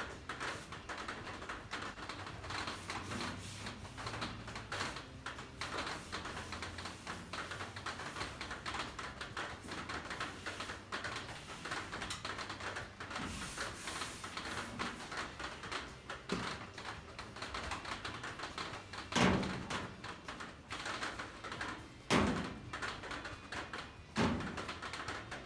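Unispotter stud welder with a domed shrinking tip making many quick hits on a steel wheel-arch patch, heating small spots to shrink a high spot along the weld. It gives an irregular run of clicks and crackles, with a few louder knocks near the end.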